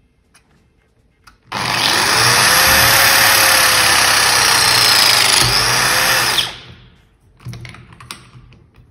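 Battery-powered hydraulic pipe press tool crimping a press fitting onto a pipe. Its motor starts about a second and a half in and runs with a steady whine for about five seconds. It dips briefly and picks up again near the end, then stops.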